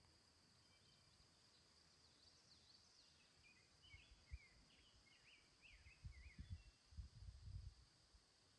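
Near silence: faint outdoor ambience with a small bird chirping in short rapid notes through the middle, over a steady faint high hum and a few soft low bumps.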